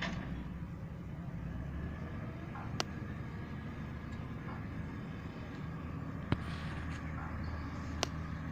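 Heavy vehicle's diesel engine running steadily with a low rumble. Three sharp clicks come through, about three, six and eight seconds in.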